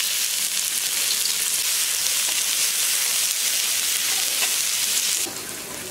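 Chopped onions sizzling loudly in hot oil, just added to the pan with panch phoron and a bay leaf. The loud sizzle drops away sharply about five seconds in, leaving a quieter frying hiss.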